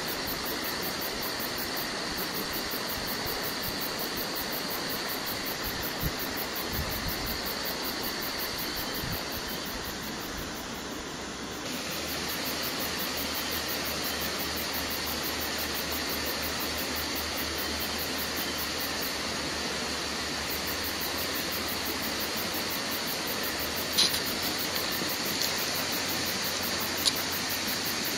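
Steady even hiss, with a couple of sharp clicks near the end.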